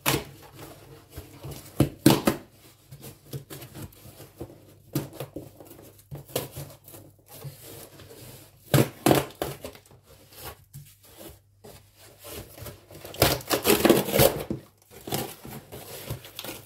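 Cardboard shipping box being torn open by hand, with irregular ripping and crinkling of cardboard and packaging, loudest in a burst of tearing about two-thirds of the way through.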